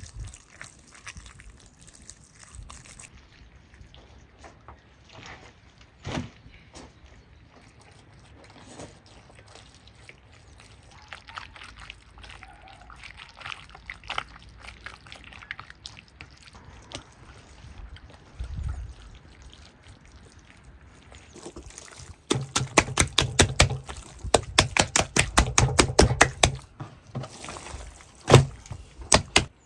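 Wet squelching and smacking of hands rubbing and kneading marinade into a raw bull leg. Soft and irregular at first, then a loud run of rapid wet slaps about three quarters of the way in, and one sharp smack near the end.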